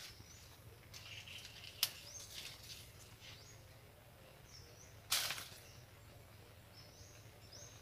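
Quiet outdoor ambience with faint, scattered bird chirps. A sharp click comes about two seconds in, and a brief rustle, the loudest sound, a little past the middle.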